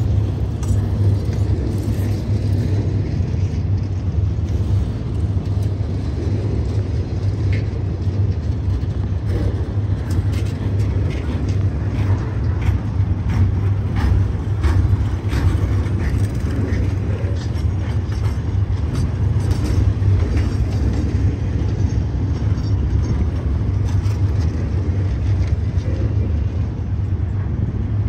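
Slow freight train of welded-rail cars rolling past: a steady low rumble of wheels on the track, with scattered clicks and brief squeals through the middle.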